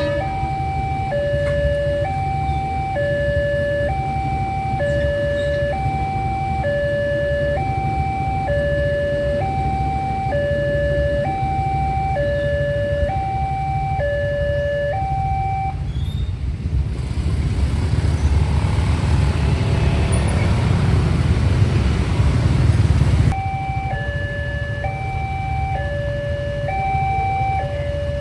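Railway level-crossing warning siren sounding a steady alarm that alternates between two notes. About two-thirds of the way through, the alarm drops out and a loud rushing rumble takes over for about six seconds, the loudest part, then cuts off and the two-note alarm resumes.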